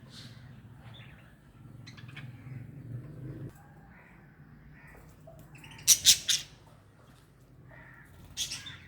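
Budgerigars chirping and squawking, with a quick run of three loud, harsh calls about six seconds in and another near the end. A low hum underneath stops abruptly about a third of the way in.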